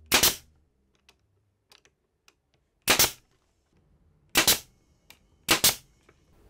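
Pneumatic brad nailer firing four times, driving brads through thin wood strips into cabinet dividers. Each shot is a sharp double crack, with small handling clicks between shots.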